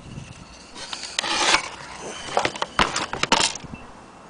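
Handling noise from a vintage gramophone motor and turntable: a scratchy scrape about a second in, then a run of sharp clicks and knocks, dying away near the end as the platter turns.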